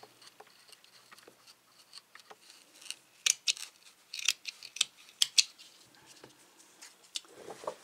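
Scissors cutting through a doubled layer of felt: a run of crisp snips, loudest between about three and five and a half seconds in, with fainter ones around them.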